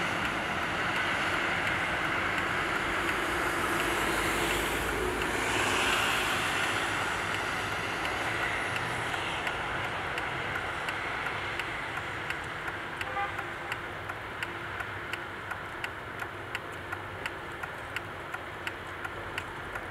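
Steady rushing background noise that eases somewhat after the first several seconds. From about halfway in, a faint regular click repeats about twice a second.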